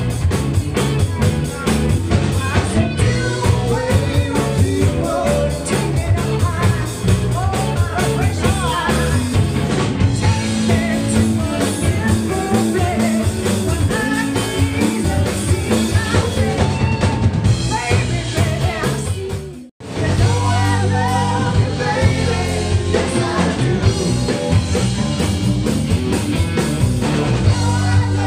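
Rock band playing live with a woman singing lead over electric guitars, heard from the audience. The sound cuts out abruptly for an instant about two-thirds of the way through, then the band carries on.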